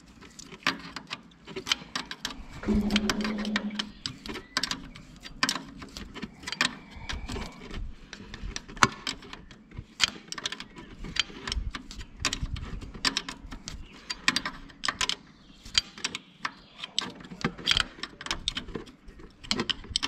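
Steel open-end wrench clicking and clinking irregularly against a fuel-line fitting at a Fiat 480 tractor's diesel filter, as the fitting is snugged up lightly over an aluminium sealing washer. A short low hum comes about three seconds in.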